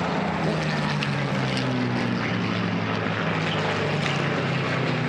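Supermarine Spitfire's V12 piston aero engine making a steady propeller drone as it makes a low pass, its pitch easing slightly lower through the pass.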